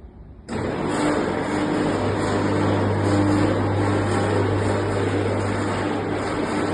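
Standing-seam roof seaming machine running, its motor humming steadily; it starts abruptly about half a second in.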